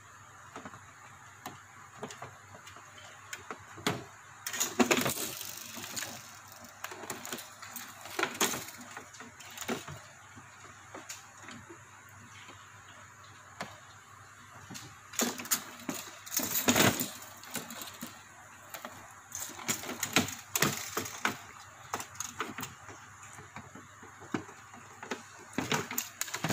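Irregular clicks, taps and scraping as hands handle an air cooler's circuit board and its wiring, with louder clusters of knocks a few seconds in and again past the middle.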